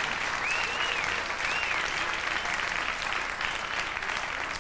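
Audience applauding steadily at the end of a song, with two short whistles that rise and fall in pitch in the first two seconds.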